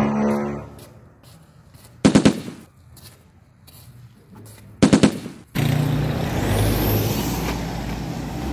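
Two short bursts of machine-gun fire, added as a sound effect, about two seconds in and again about five seconds in, each a quick run of sharp shots. From about five and a half seconds a steady loud rumbling noise follows, with a whistle rising in pitch across it.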